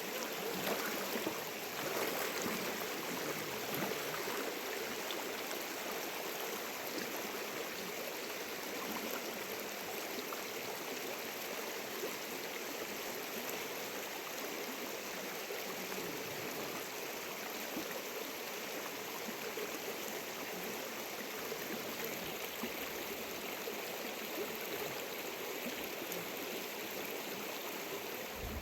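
Fast-flowing mountain river rushing steadily over rapids.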